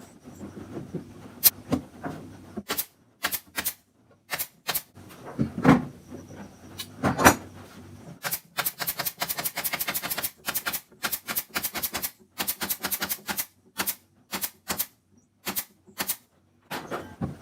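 Sharp clicks and knocks of hand assembly work on a subwoofer cabinet. They come singly at first, then in fast runs of rapid clicks through the middle of the stretch.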